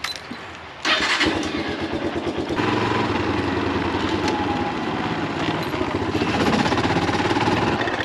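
A red farm motorbike's engine starts suddenly about a second in, then runs with a steady pulsing note as the bike is ridden off.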